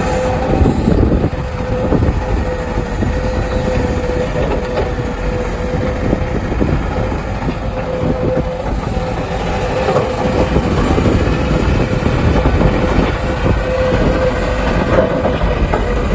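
Excavator at work: its diesel engine running under load with a steady whine and irregular clanks and rattles.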